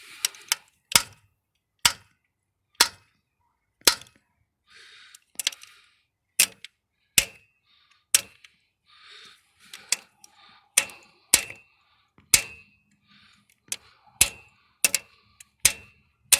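Channel-lock pliers knocking on a truck's engine block, about twenty sharp metal strikes roughly once a second, some with a short ring. The knocks are vibrations meant to make the knock sensor put out a small AC voltage for a multimeter test.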